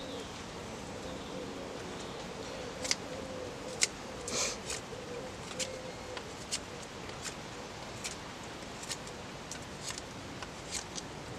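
A fixed-blade bushcraft knife (Real Steel Bushcraft Plus Convex) whittling a debarked stick: short, sharp scraping cuts at irregular spacing, roughly one a second, as shavings come off the wood.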